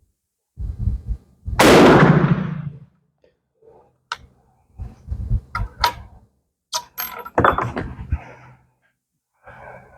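A single .45-70 Sharps rifle shot about one and a half seconds in, dying away over about a second, followed by several sharp clicks and knocks of the rifle being handled.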